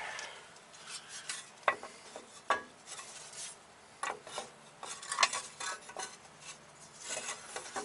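Stamped-steel rear brake dust shield and small metal parts being handled and fitted onto a rear axle stub: light scraping with a few sharp metallic clinks.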